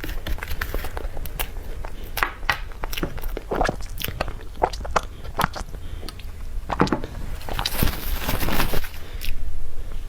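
Close-miked eating sounds of someone chewing cream cake: scattered mouth smacks and clicks, with a longer noisy stretch near the end.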